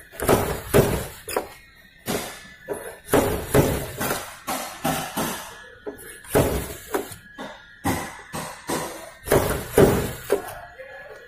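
Irregular knocks on a car's sheet-metal body panel, about one to two a second, each with a short metallic ring, as a dent is tapped out.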